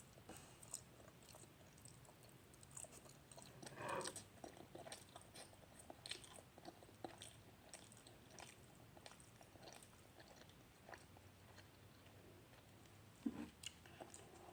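Faint chewing of instant noodles: soft, wet mouth clicks scattered throughout, a little louder about 4 s in.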